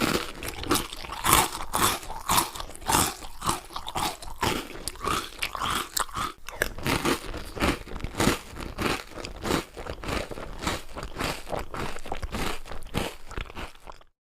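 A person biting and chewing crunchy food close to the microphone: a steady run of crisp crunches, about two a second, that cuts off abruptly near the end.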